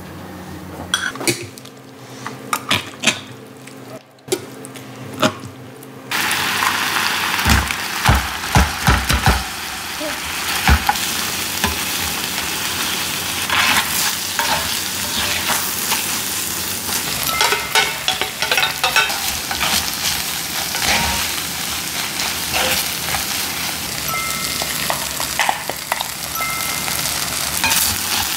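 Rice sizzling as it fries in a cast-iron skillet, while wooden spatulas stir, spread and press it against the pan with repeated knocks and scrapes. The sizzle starts suddenly about six seconds in; before that there are only a few light taps.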